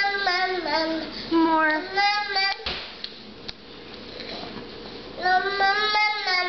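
A toddler's high-pitched singsong vocalizing: three drawn-out, wavering calls, with two short sharp knocks between the second and third.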